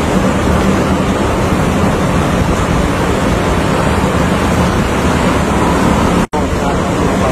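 Wind noise on the microphone over the wash of sea water, with a steady low hum like a boat engine running. The sound cuts out for an instant about six seconds in.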